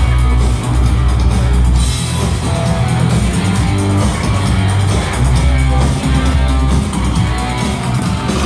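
Rock band playing the instrumental intro of a song: guitar and drums, with heavy sustained bass notes.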